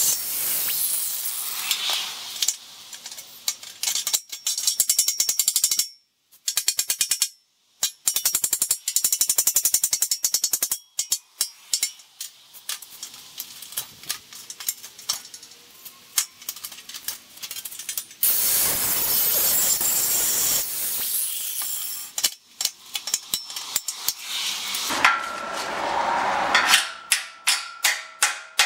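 Angle grinder cutting into a rusty steel square tube, then running again about two-thirds of the way through, with long stretches of sharp metallic clicking and knocking between the cuts. Near the end, a hammer strikes the steel tube in a steady run of blows, about two or three a second, the tube ringing after each blow as a cut tab is knocked up.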